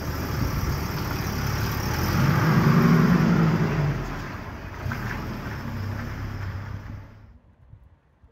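A Volvo 240 saloon's engine running as the car drives slowly past, growing louder to a peak about three seconds in, then fading. The sound cuts off abruptly about seven seconds in.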